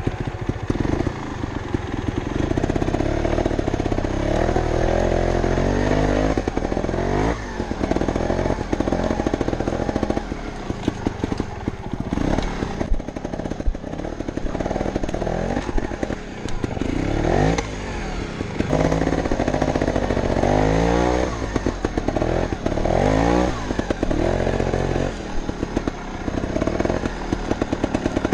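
Montesa Cota 315R two-stroke trials motorcycle being ridden, its engine revving up and easing off over and over with rising and falling pitch. Frequent short knocks and rattles run through it.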